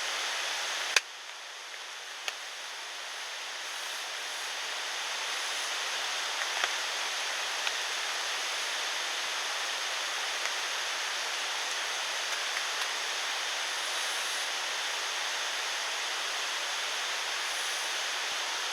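Steady rushing noise of water, such as rain or a mountain stream. A sharp click comes about a second in, and a few faint ticks follow later.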